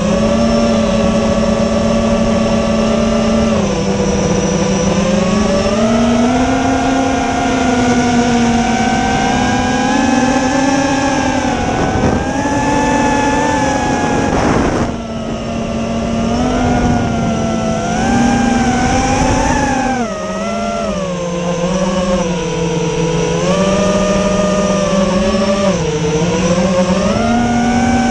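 FPV quadcopter motors and propellers whining. The pitch keeps rising and falling with the throttle, dipping briefly about halfway through and again a little later.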